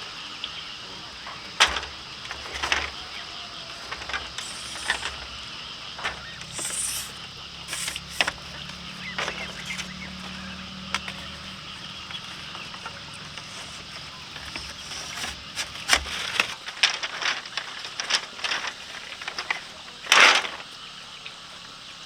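Irregular sharp knocks and cracks, as of bamboo being cut and worked, with louder ones a couple of seconds in and near the end, over a steady background.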